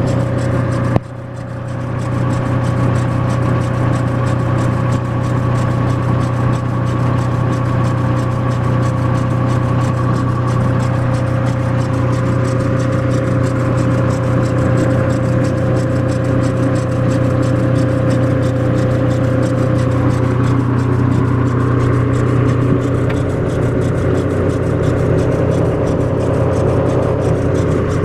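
1994 Mazda MPV's engine running steadily, with a steady whining tone over the engine hum: the weird sound the owner is showing. The whine shifts in pitch about twenty seconds in.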